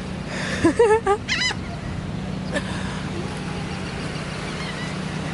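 A bird calling in a quick series of short, pitched calls about a second in, over a steady low hum.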